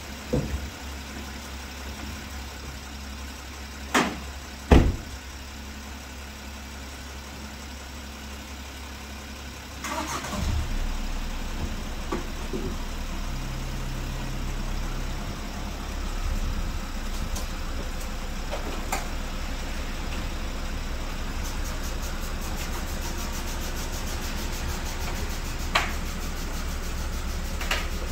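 Two sharp knocks about four and five seconds in, then the VW Passat's 2.0 TDI four-cylinder diesel starts about ten seconds in and runs steadily at idle as the car is backed down the transporter ramp.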